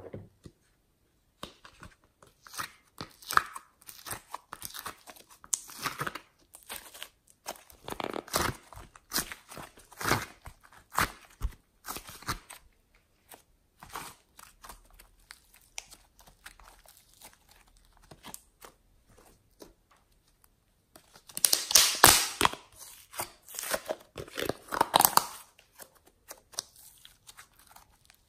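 Hands squeezing, folding and stretching soft clay and slime, with irregular sticky crackling and tearing sounds as the material pulls apart. A louder run of crackling comes about three quarters of the way through.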